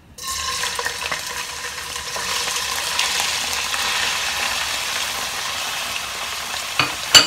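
Raw boneless chicken pieces hitting hot oil in a nonstick wok and sizzling as they start to fry. The sizzle starts suddenly and holds steady. Two sharp knocks come near the end, the second the louder.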